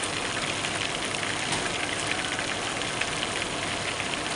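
A whole fish deep-frying in a pan of hot fat: a steady sizzle with dense, fine crackling.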